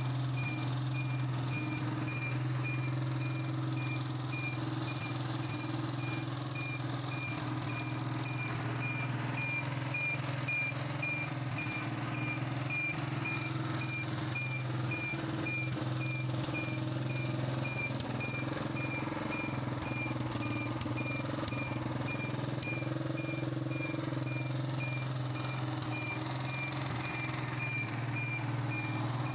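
Honda CG-125's air-cooled single-cylinder four-stroke engine running steadily on its stand, freshly rebuilt with the tappets set loose so they tick. A regular high-pitched beep repeats about twice a second over the engine.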